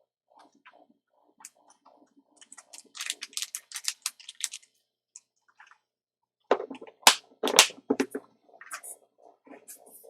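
Small parts packaging being handled while searching for a replacement chip: a run of crinkling about two and a half to four and a half seconds in, then several sharp clicks a couple of seconds later, with light knocks between.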